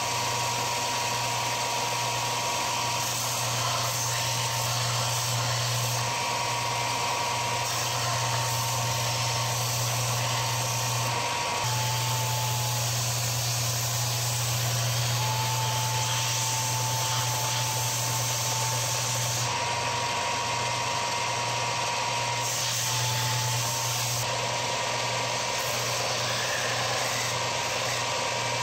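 Benchtop belt sander running steadily while a wooden spatula is held against the belt: a steady motor hum and high whine under a rough sanding hiss. The whine dips slightly in pitch now and then.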